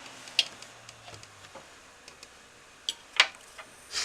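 A low steady hum dies away about a second in, followed by a few scattered sharp clicks, the loudest about three seconds in.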